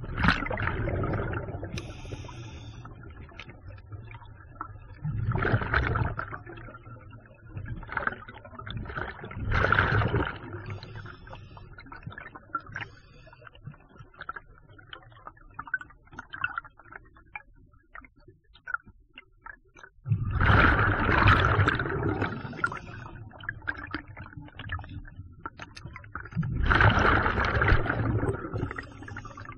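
Scuba diver breathing underwater through a regulator: five bursts of exhaled bubbles rushing out, with a long pause of about ten seconds in the middle, and quieter bubbling and crackling between the breaths.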